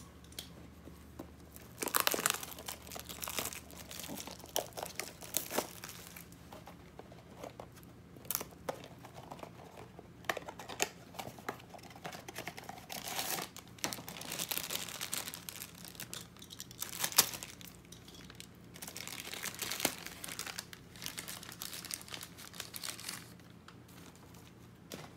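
Funko Mystery Mini blind-box packaging being torn open and crinkled by hand: irregular rustling and crackling with sharp clicks, dying down near the end.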